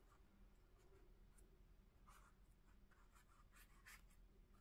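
Faint scratch of a paintbrush dragging wet acrylic paint across paper, several short strokes from about two seconds in.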